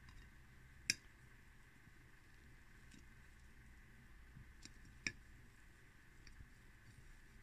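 Near silence: faint room tone broken by two short clicks, one about a second in and another about five seconds in.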